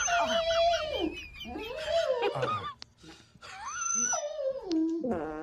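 A dog whining in three long, drawn-out calls that fall in pitch, with a short yip near the end.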